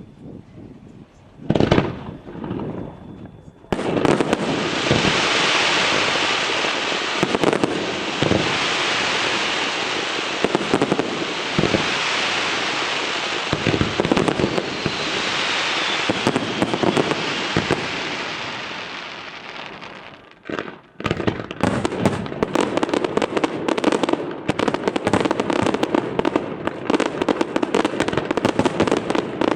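Fireworks display: a single bang about a second and a half in, then a long, dense crackling hiss that fades out around twenty seconds, then a rapid run of many sharp cracks.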